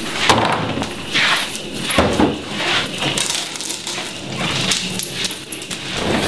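Wheeled metal trolley rattling and clinking in uneven bursts as it is pushed across a hard floor.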